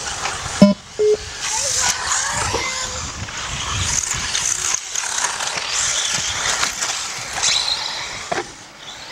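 Radio-controlled off-road racing cars running on a dirt track, their motors whining up and down in pitch over a steady hiss of tyres and gravel. Short electronic beeps sound about a second in, and there are a few sharp knocks.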